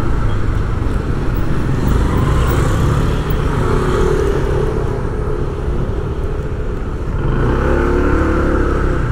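Street traffic: motor vehicle engines running with a steady low rumble, one engine drawing close and its pitch wavering near the end.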